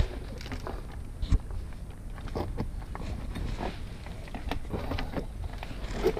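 Footsteps and shoe scrapes on large boulders as someone climbs over a rock wall, an irregular run of knocks and scuffs with one heavy thump about a second in.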